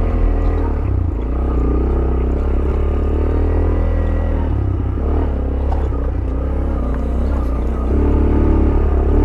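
Yamaha YBR 125G motorcycle's single-cylinder four-stroke engine running steadily at low revs, its note shifting a few times.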